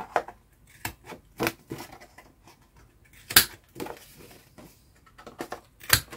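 Scattered short taps, clicks and rustles of card and paper being handled during craft work. The loudest is a sharp tap a little over three seconds in, and another comes near the end.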